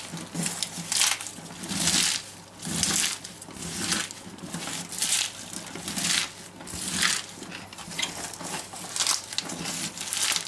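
Salted shredded white cabbage being squeezed and kneaded by hand so that it starts to release its juice for sauerkraut: a rustling squeeze of the crisp shreds repeated roughly once a second.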